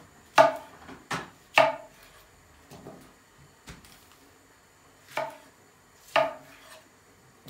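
Chef's knife halving tomatoes on an end-grain wooden cutting board: about seven sharp knocks at uneven intervals as the blade strikes the board, five of them loud.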